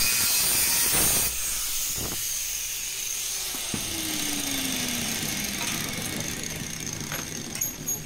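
Angle grinder cutting a notch in aluminium channel. About a second in the cutting stops, and the motor keeps running more quietly as its pitch slowly falls, winding down. A few light knocks near the end.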